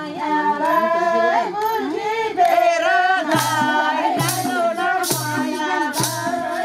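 Group singing a Nepali Deusi-Bhailo folk song, with a madal hand drum keeping a steady beat and hands clapping along.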